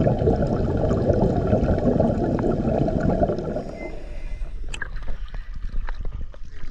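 Water noise, sloshing and gurgling, dense and low for about four seconds, then quieter with scattered sharp clicks.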